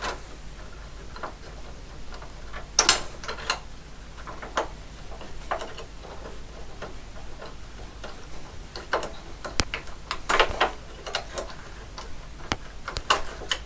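Irregular clicks and rattles of power connectors and their wires being worked loose and pulled off inside a metal computer chassis, with the sharpest clusters about three seconds in and again around ten seconds in.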